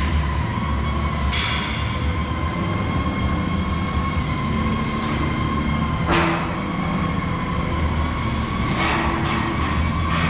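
A 40 cu.ft. Gemco V-blender vacuum dryer running on test: its electric drive motor, belt and reducer turn the V-shell with a steady hum and a steady high whine. A few sharp knocks cut through, the loudest about six seconds in and a cluster near the end.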